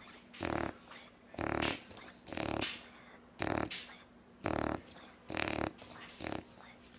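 Dog snoring, one short snore about every second.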